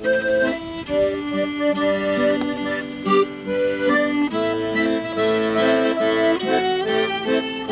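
Instrumental intro music led by an accordion playing a lively melody of short held notes.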